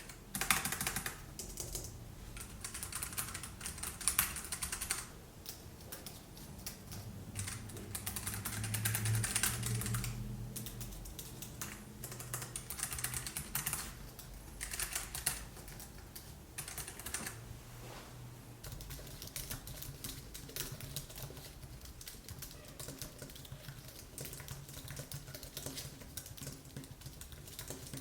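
Continuous typing on a computer keyboard: a quick, uneven run of key clicks with brief pauses between bursts.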